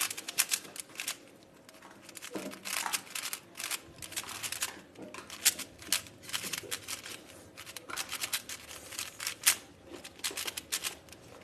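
A new, unlubricated 59 mm Moyu 4x4 speed cube being turned by hand: irregular runs of quick plastic clicks and clacks as the layers snap round, with short pauses between runs.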